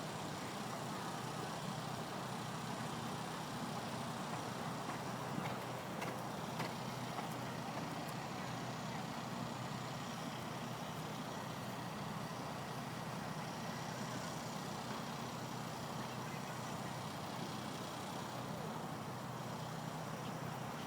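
Steady outdoor background noise, a low hum under a hiss, with a few faint clicks about six seconds in.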